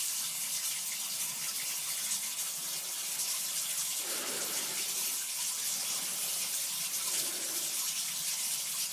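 Steady hiss, strongest in the high range.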